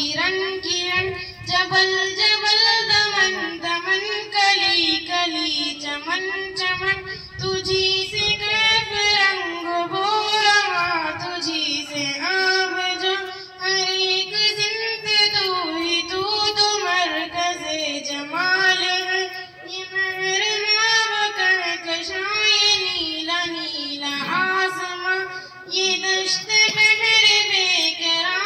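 A young girl singing a hamd, an Urdu hymn in praise of God, solo into a microphone. Her voice carries a continuous, wavering melody that rises and falls.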